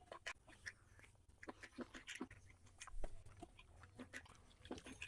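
Close-up eating sounds: chewing and lip-smacking, with wet squishing as a hand mixes rice and curry on a plate, heard as a run of short, irregular smacks and clicks.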